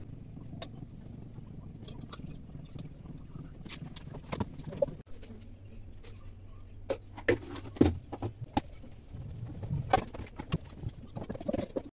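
Kitchen handling sounds: scattered light knocks and clinks of utensils and a steel bowl as paratha dough is worked, coming more often in the second half, over a low steady hum.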